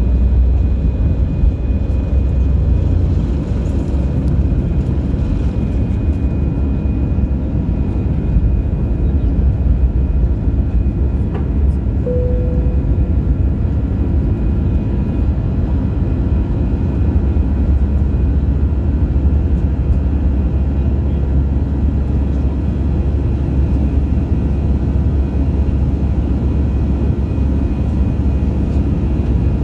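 Airbus A320 cabin noise during takeoff and climb-out: the jet engines at takeoff thrust give a loud, steady, heavy rumble, heard from a window seat over the wing. A short tone sounds once about twelve seconds in.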